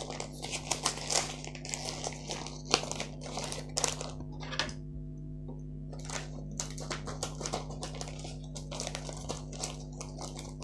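Plastic mailing bag crinkling and rustling as hands handle it, with scissors cutting into it near the end, over a steady low hum.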